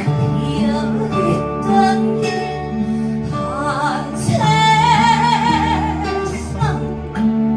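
A woman sings a Korean trot song over instrumental accompaniment. About halfway through she holds a long note with vibrato.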